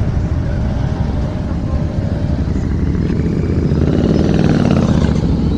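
Kawasaki Z900 motorcycle's inline-four engine running on the move, a steady loud rumble whose pitch rises and falls about four seconds in.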